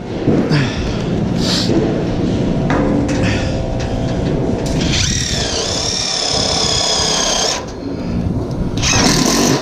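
Cordless drill driving self-tapping screws through the door frame's steel clips into metal studs. The motor runs in short spurts, then about halfway through it whines for a few seconds, dipping in pitch as the screw bites and then holding steady.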